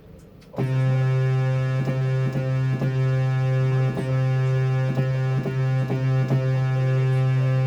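Synthesizer holding one steady low goal-horn tone, starting about half a second in. It imitates the goal horn shared by the Colorado Avalanche and Vegas Golden Knights.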